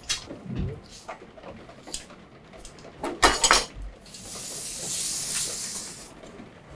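A whole sturgeon being handled in a stainless steel tray of liquid: a few knocks, then a loud clatter against the metal tray about three seconds in. Water then streams off the raised fish back into the tray for about two seconds.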